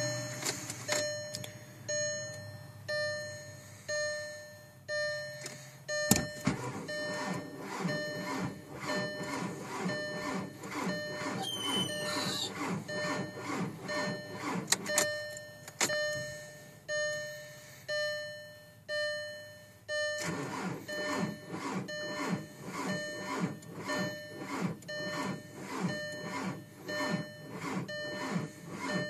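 A car's warning chime ringing about once a second. About six seconds in, a click and the starter cranking a TDI diesel engine in a fast, even rhythm, with a short pause near the middle; the engine does not catch. This is a no-start in 5 °F cold.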